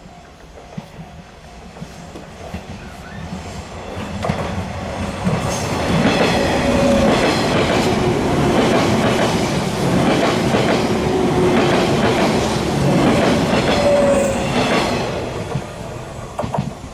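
485-series electric train passing: it builds up over a few seconds, runs past with wheels clacking over the rail joints, then fades away near the end.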